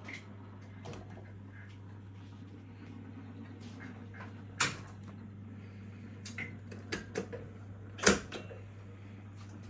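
Steady low hum from an idle 1969 Bergmann Jupiter Saphir 120H jukebox, with a handful of short clicks. The loudest click comes about eight seconds in, as a selection button on the jukebox's keyboard is pressed.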